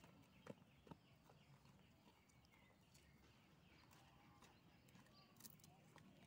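Near silence: faint outdoor ambience, with two soft ticks about half a second and a second in, and faint short chirps.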